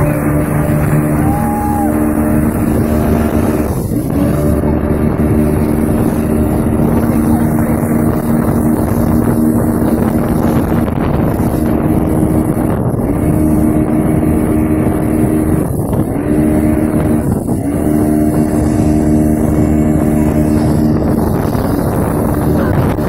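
Speedboat engine running steadily under way with a constant hum, its pitch dipping briefly and recovering three times: about 4 seconds in and twice near the middle of the second half.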